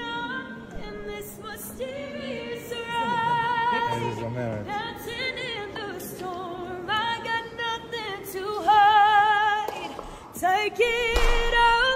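A woman singing a pop ballad a cappella, holding long notes with vibrato.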